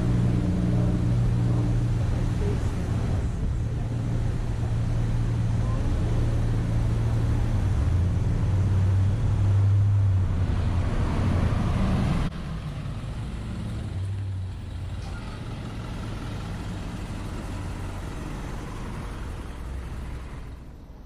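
Engine of a large road vehicle idling with a steady low hum. About twelve seconds in, the hum cuts off suddenly, leaving quieter street noise.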